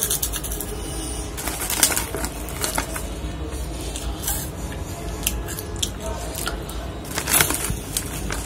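Close-up chewing of puffed corn snack balls: irregular crisp crunches. About seven seconds in, the foil-lined snack bag crinkles loudly as a hand reaches into it.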